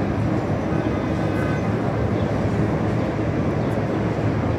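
Steady low hum and rumble from a standing Stadler electric train, its onboard equipment running.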